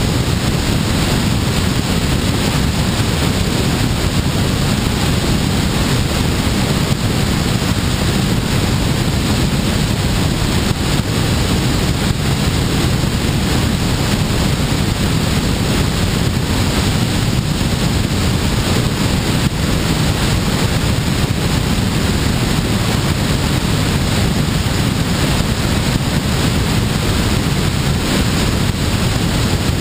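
Steady wind noise from the airstream rushing over a wing-mounted camera's microphone on a glider in flight, a low, even rumble.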